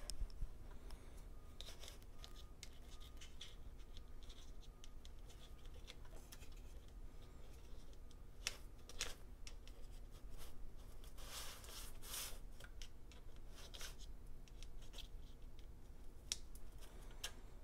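Faint handling noises from a MacBook Air and its loose trackpad being moved by hand: light scrapes and small ticks, with a few longer scraping strokes about halfway through.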